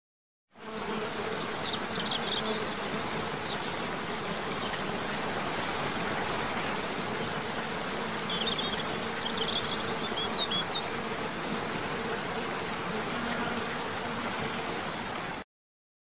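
Steady outdoor ambience of buzzing insects, with a few short high chirps about two seconds in and again between about eight and eleven seconds in. The sound fades in half a second in and cuts off abruptly just before the end.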